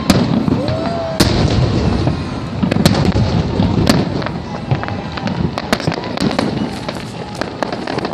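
Aerial fireworks shells bursting in a rapid, irregular series of loud bangs and crackles, over a continuous rumble of further explosions.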